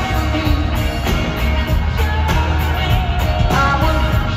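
Live rock band playing: a male lead voice singing over bass guitar, electric guitar and drums, with a steady heavy bass line underneath.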